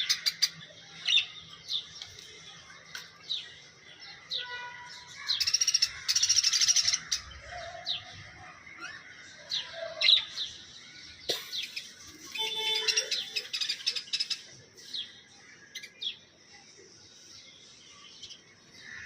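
A parrot calling: a string of short, scattered chirps, with two longer rapid, buzzy calls about a third of the way in. A single sharp click comes a little past the middle.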